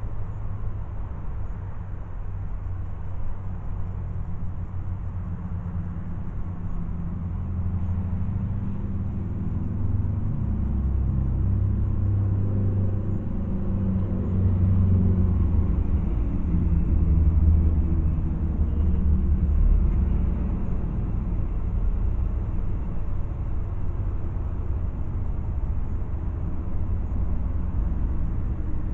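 Car on the move, heard from inside the cabin: a steady low engine and road rumble that swells louder for several seconds in the middle and then eases back.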